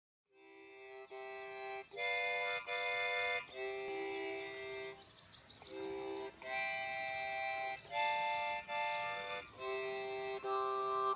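Solo harmonica: held chords and notes that change every second or so, with short breaks between breaths and a quick trill about halfway through.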